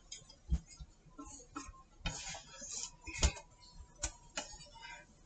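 Wooden chopsticks tapping and scraping against a frying pan as a crepe is turned. The clicks are light and irregular, with a short scrape a little after halfway and the loudest knock just after it.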